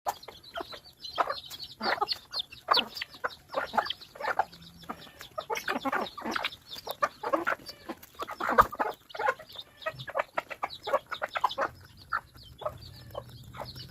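Several chickens clucking, a dense run of short overlapping calls without a break.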